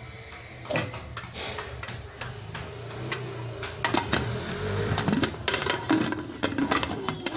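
Metal pot lid being handled and set on a cooking pot: a run of clinks and knocks of metal on metal, with short scrapes, over a steady low hum.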